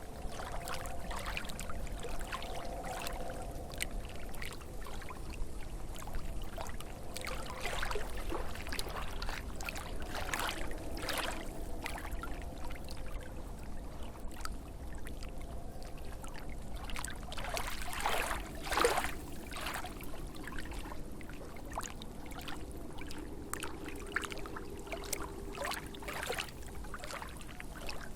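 Lake water lapping at the shore: irregular small splashes and trickles over a low steady wash, with a slightly bigger splash about two-thirds of the way through.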